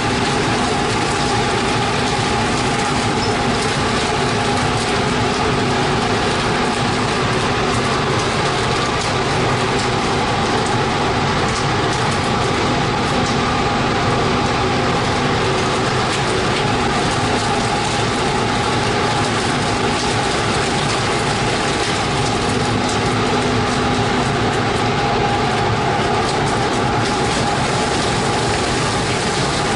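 Steady machinery din of a fishing trawler's deck, a constant hum in several tones under a rattling clatter, as the catch is emptied from the net onto a steel grate.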